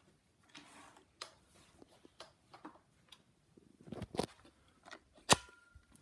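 Scattered light clicks and knocks of handling, with no motor running. The loudest is a sharp click a little after five seconds, which rings briefly.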